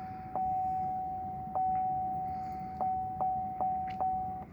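2014 Chevy Malibu's electronic warning chime holding a steady high tone, with six sharp clicks as the key is turned to start; the engine does not crank, a no-crank, no-start fault. The tone jumps louder at each click, fades between them, and stops just before the end.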